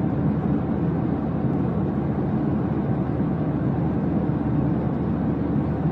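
Steady low drone of jet airliner cabin noise, even and unchanging.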